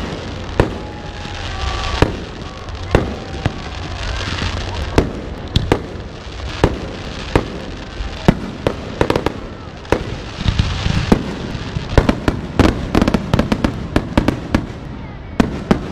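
Fireworks display: aerial shells bursting with sharp bangs, at first roughly one a second, then in a quick run of many bangs near the end, with a hiss between some of them.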